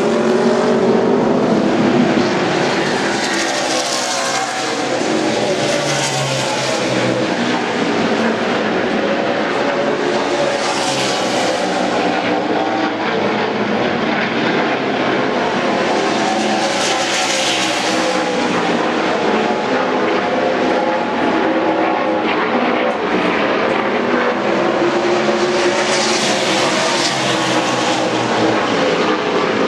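NASCAR Nationwide Series stock cars' V8 engines running practice laps, several at once in a continuous layered drone. It swells louder every few seconds as cars go past.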